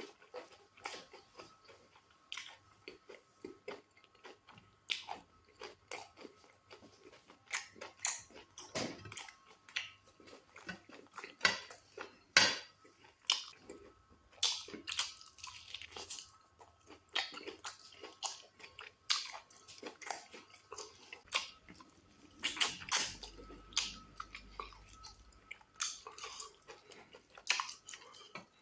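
Close-miked eating sounds of a person eating fufu with black soup and goat meat: chewing, lip-smacking and wet mouth clicks, many sharp and irregular.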